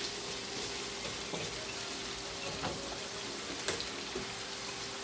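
Chopped carrots, celery and onion sizzling steadily in hot oil in a pan, with a few small pops and one sharper tick a little past halfway.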